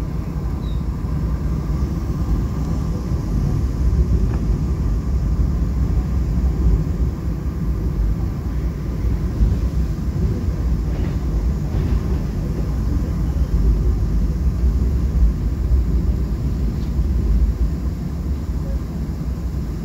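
Seoul Subway Line 7 electric train heard from inside the carriage while running at speed across a river bridge: a steady low rumble of wheels on rails and running gear.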